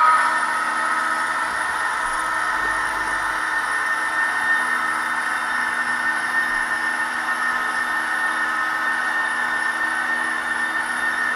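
Gauge 1 (1:32) Fine Models SBB BDe 4/4 model electric railcar hauling coaches, its motor and gears whining steadily as the wheels roll along the track.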